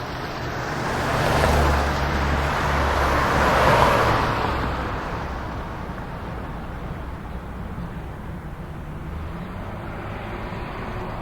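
Highway traffic: vehicles passing by, swelling about a second and a half in and again near four seconds in, then a steadier rush of road noise over a low engine hum.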